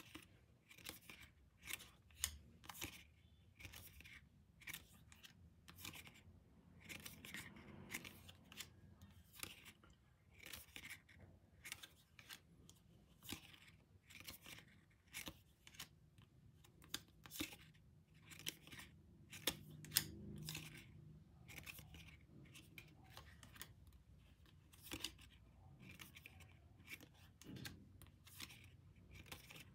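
Glossy photo cards being handled: quiet, irregular clicks and light slides, one to three a second, as cards are flipped off a stack and set down on other cards.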